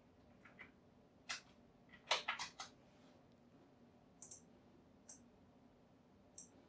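Computer keyboard keystrokes, one and then a quick run of about four, followed by three sharp computer-mouse clicks roughly a second apart.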